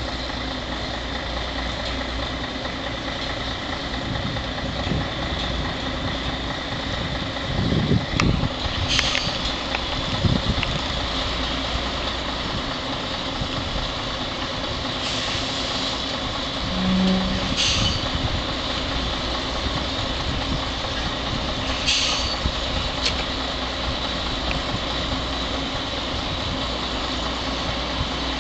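Heavy truck's diesel engine running steadily at low revs, with short air-brake hisses four times, one of them about a second long.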